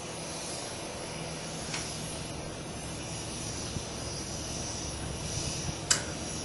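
Steady outdoor background rumble, with a sharp click near the end.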